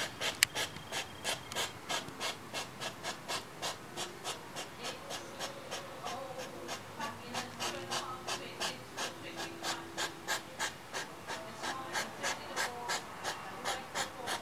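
European hedgehog huffing in courtship: an unbroken run of short, sharp puffs, about three to four a second.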